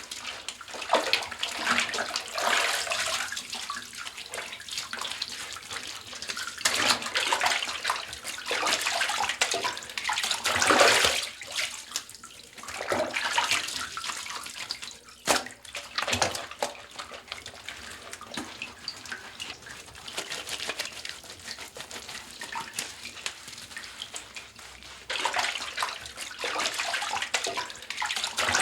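Bathwater splashing and sloshing in irregular surges as a person washes in a bathtub, with one sharp knock about halfway through.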